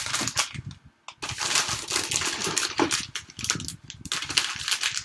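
Plastic ramen packets crinkling and rustling as they are handled, in two long stretches of dense crackle with a brief lull between them.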